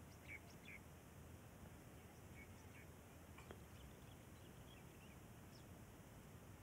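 Near silence outdoors, with faint, scattered short bird chirps and one faint click about halfway through.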